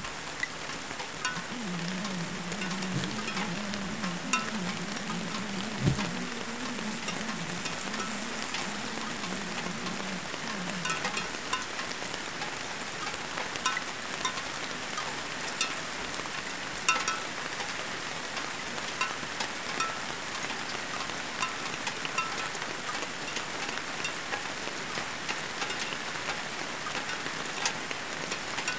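Dense, steady crackling hiss, like frying, with scattered clicks. A low, wavering buzz runs under it and stops about eleven seconds in.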